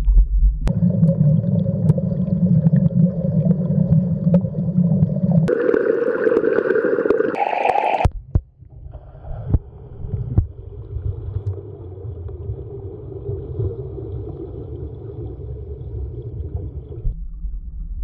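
Muffled underwater rumble with gurgling water, as heard below the surface of a pool. It shifts abruptly in pitch and loudness about five and eight seconds in, with a few sharp clicks, then runs quieter and lower.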